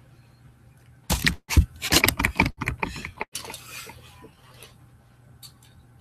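A burst of clattering knocks and clicks, like die-cast toy monster trucks being handled, mixed with thumps and rustling of someone moving about on a carpeted floor. It lasts about two seconds, starting about a second in and fading into rustling, with one faint click near the end.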